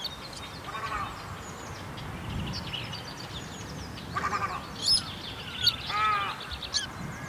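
White-browed crake calling: several short, harsh, nasal calls spaced a second or two apart, with thin high chirps in between.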